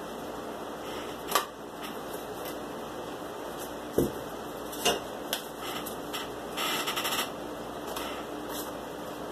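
Cardboard pieces being handled and fitted onto a cardboard model: a few light taps and clicks, and a brief scraping rustle a little past halfway, over a steady background hiss.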